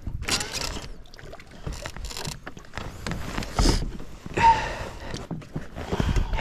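Irregular clanks, rattles and scraping from a Garmin bow-mount trolling motor being gripped and worked by its head, with a brief squeak about four and a half seconds in. The motor keeps dropping down on its mount.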